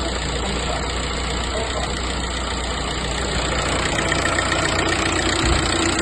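Audi A4 B6 engine idling steadily while the steering wheel is turned, with no whistle or squeal: the alternator pulley has just been replaced to cure the squeal on steering.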